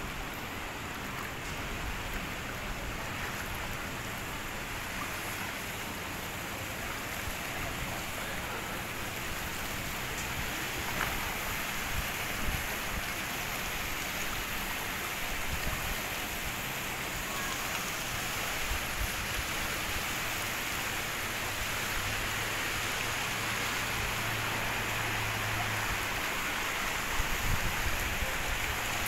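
Steady, even hiss of outdoor ambience, rain-like, over a flooded street, with a low steady hum for a few seconds past the middle.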